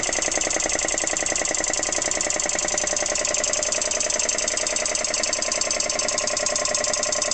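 Vintage Dunlop twin-stage piston air compressor running steadily under load with a fast, even pulsing beat as it pumps up its tank pressure.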